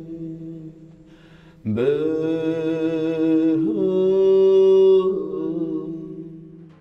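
A man's voice chanting long held notes into a hollow wooden drum shell. After a short gap a new note slides up into place and holds, changing pitch a couple of times, loudest a little before the end, then fading away.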